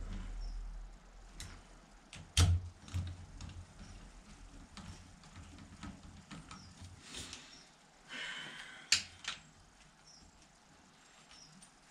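Scattered metallic clicks and knocks of a spanner working on the top of a Fordson Major's engine, the loudest knock about two and a half seconds in and another sharp click about nine seconds in. A short scraping rustle comes just before that last click.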